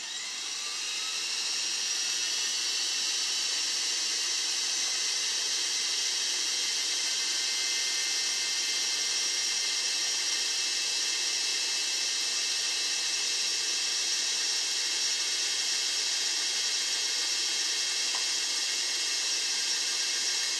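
Motor-driven Lego Technic four-blade variable-pitch propeller spinning at small blade pitch: a steady high whir with a rush of air from the blades. It spins up over the first second or two, then runs evenly.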